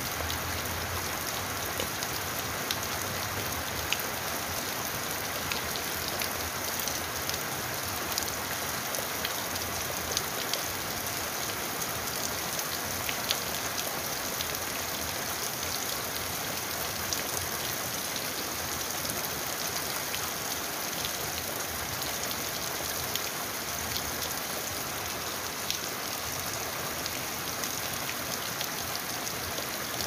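Steady rain: an even hiss with many scattered sharp drop ticks.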